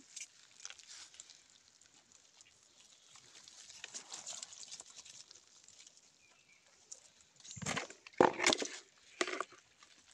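Faint crackling of dry leaves, then near the end three loud, sudden scraping knocks as the snap-on lid of a plastic bucket is pulled off.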